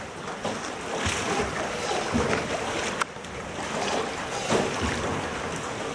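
Water splashing and swishing around a small rowed wooden boat, with surges about once a second as the oars stroke. A single sharp click about three seconds in.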